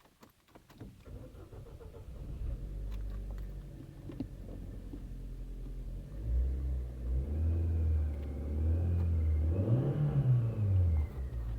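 Ford Fiesta engine starting from cold and running, with a faint high whistle coming in about halfway through; near the end the revs rise and fall once.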